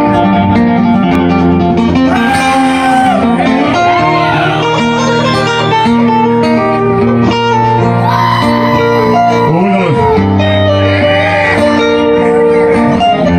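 Two amplified acoustic guitars playing together live, with a voice sliding up and down in pitch over them now and then.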